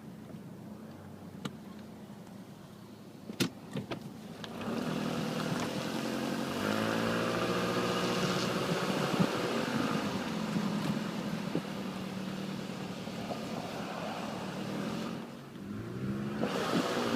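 2007 Nissan Altima engine starting: a few clicks, then about four and a half seconds in the engine catches, revs up and runs on, with a short dip in level near the end before it picks up again. The owner calls it a rough start-up.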